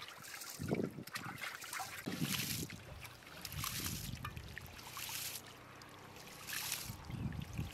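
Hands sloshing and splashing in large metal basins of water, first washing raw chicken pieces and then rinsing rice, in repeated strokes about once a second.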